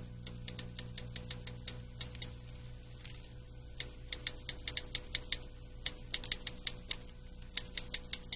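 Typewriter keys clacking in irregular runs of quick strokes, with a short pause about three seconds in, over a steady low hum.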